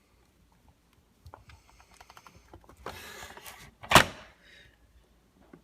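Hands pressing Play-Doh into a plastic mold: faint rubbing and handling noises, then one sharp knock of the mold against the table about four seconds in.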